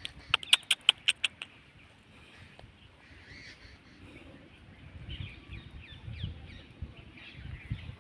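A squirrel giving a rapid run of about eight sharp chipping calls in just over a second, followed by faint bird chirps and a few low thuds.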